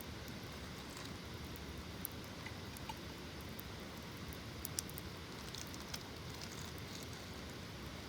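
Wood campfire crackling, with scattered sharp pops and snaps, the loudest a little under five seconds in, over a steady low rumble.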